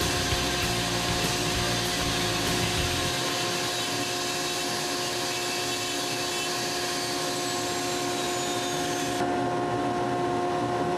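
Steady whir of a dust-collector vacuum together with a Foredom flex-shaft carving tool, its rotary burr grinding white cedar. The low rumble drops away about three seconds in.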